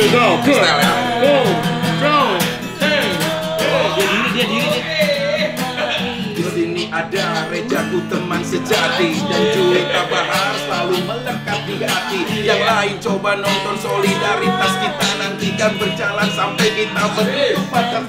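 Acoustic guitar playing with a woman and a man singing a song in Indonesian.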